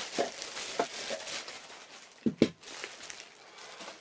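Plastic wrapping rustling and crinkling as it is pulled off a machine by hand, with a few small clicks. Two quick knocks about two and a half seconds in are the loudest sounds.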